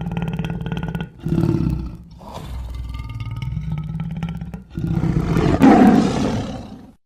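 A large animal roaring and growling, in four roars with brief breaks between them, the last and loudest one cutting off suddenly near the end.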